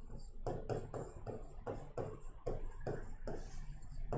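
A pen writing on a board: a quick run of short scratching strokes and taps, about three a second.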